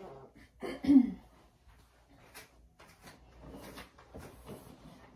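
A brief throaty vocal sound about a second in, like a throat-clear or small cough, then faint rustling and light clicks as a fabric curtain is drawn open.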